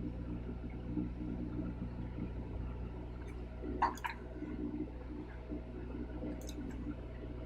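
Steady low electrical hum with a few light clicks of tools at work on the keyboard, about four seconds in and again a couple of seconds later.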